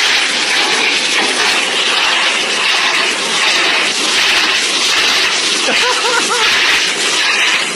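Pet blow dryer running steadily with a loud rushing hiss of air. A few short rising squeaks come in about six seconds in.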